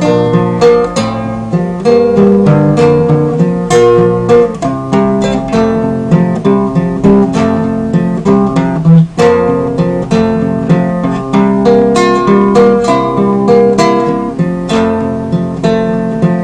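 Acoustic guitar played by hand: a steady run of plucked notes and strummed chords, with a momentary break about nine seconds in.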